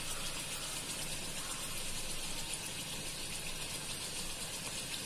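Puri deep-frying in hot oil in a pan: a steady sizzle of bubbling oil.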